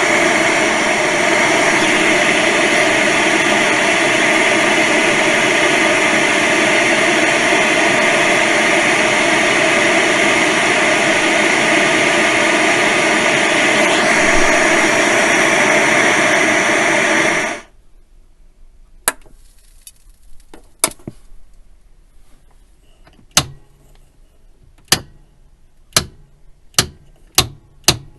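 Old analog TV static: a loud, steady hiss that cuts off suddenly about eighteen seconds in. A run of sharp clicks follows, sparse at first and then about one a second.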